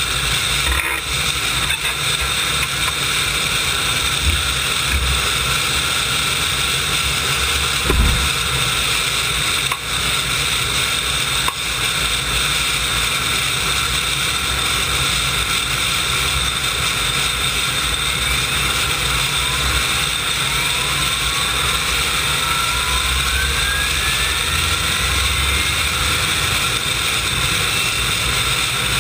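Klimov TV3-117 helicopter turboshaft engines of a turbine pulling tractor idling: a steady jet whine over a rushing hiss. A low thump comes about eight seconds in, and in the last third several faint whines glide upward in pitch.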